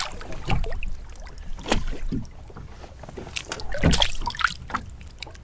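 Hooked smallmouth bass splashing at the surface beside the boat as it is brought in to be landed: a few irregular splashes over the wash of choppy water against the hull.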